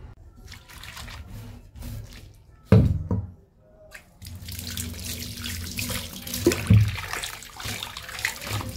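Tap water running into a steel kitchen sink and splashing around a soapy kadhai, starting about four seconds in. A sharp knock just before that, and two more close together later, as the pan is handled in the sink.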